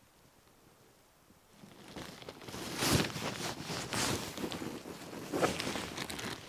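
Clear plastic bag crinkling and rustling as it is handled, starting about two seconds in, with several louder crinkles.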